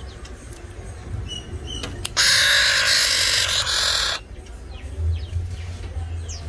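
Black-naped oriole giving one loud, harsh, rasping call about two seconds long, starting about two seconds in.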